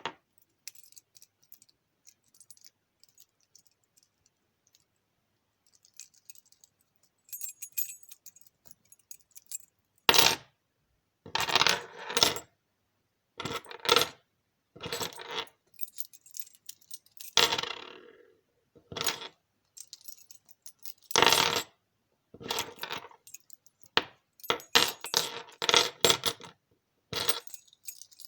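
A bunch of keys on a keychain jangling and clinking in short bursts, one every second or two, after several seconds of only faint clinks.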